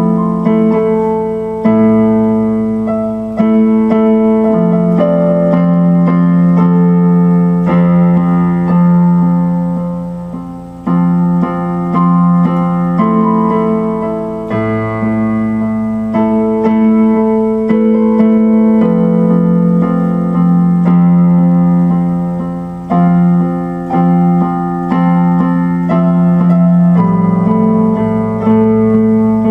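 Electric keyboard played in slow chords, each held for a second or two before the next, over a low bass note that comes and goes.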